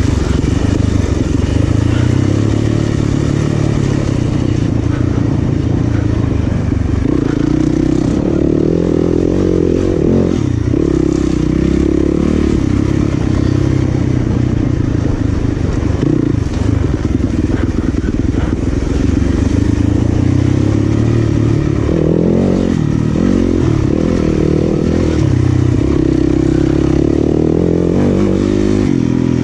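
Dirt bike engine running at race pace, its revs rising and falling again and again as the throttle is worked.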